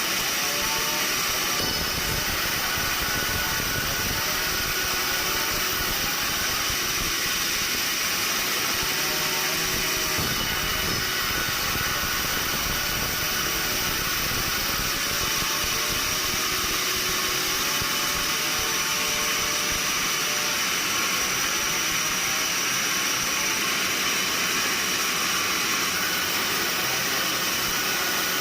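Sawmill machinery running with a steady, unchanging noise.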